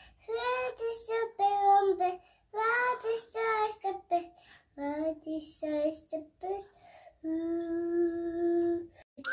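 A child singing unaccompanied in short phrases, ending in one long held note near the end.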